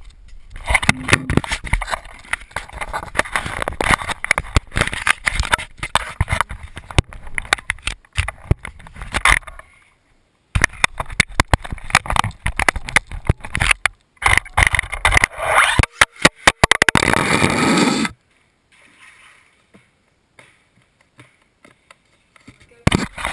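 Losi Mini 8ight RC buggy driving on a hard indoor floor: tyres scraping and the chassis clattering with many knocks, and a stretch of motor whine rising and falling in pitch near the middle, after which it goes almost quiet for several seconds before the clatter starts again.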